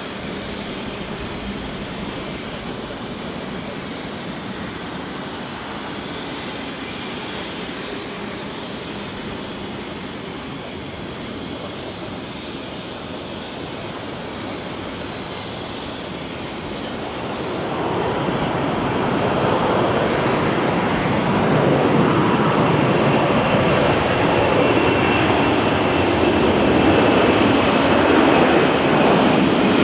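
Jet engines of an Asiana Cargo Boeing 747-400 freighter at takeoff power: a steady distant rush that swells about halfway through, as the aircraft draws nearer, and stays loud with a thin high whine.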